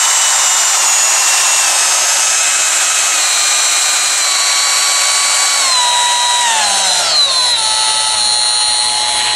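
DeWalt brushless electric die grinder running with no load, its high whine stepping down in pitch as the speed control is turned from the top setting of 25,000 RPM to the lowest of 7,500 RPM. The biggest drop comes about six to eight seconds in, after which it runs steady at the lowest speed.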